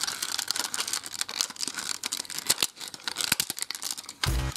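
Plastic parts of transforming, combining robot toys clicking and rattling as they are handled, a quick irregular run of small clicks. Music comes in near the end.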